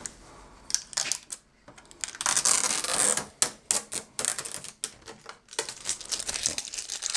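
Packing tape being peeled off a plastic air cooler's housing: a crackling rip with irregular sharp clicks, loudest about two to three seconds in and again near the end.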